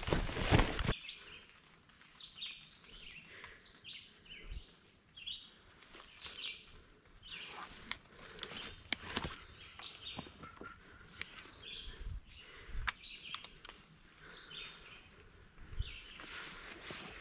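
Footsteps crunching through leaf litter for about the first second, then a long series of short, high chirping calls, a few a second, with occasional sharp snaps and rustles and a faint steady high tone underneath.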